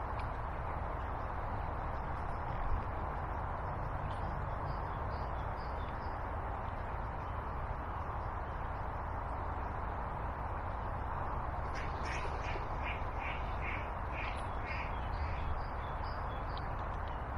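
Steady rush of water at a river weir pool. About twelve seconds in, a bird calls in a quick run of about ten notes, roughly three a second, and there is a soft bump near the start.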